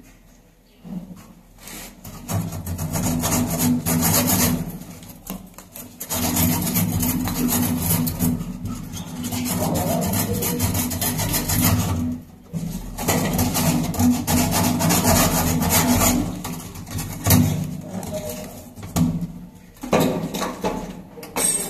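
Rasping, sawing-like strokes of a hand tool in long runs broken by short pauses.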